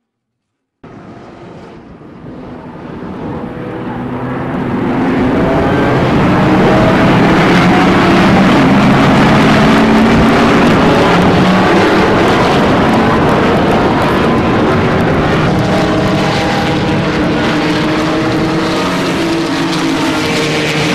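Engines of cars running hard on a race track, their pitch rising and falling. The sound cuts in about a second in, builds over the next few seconds and then stays loud.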